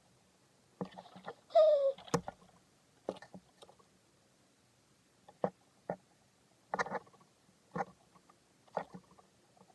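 Scattered small clicks and taps of nail polish bottles and a striper brush being handled on a table, with one short squeak falling in pitch about a second and a half in.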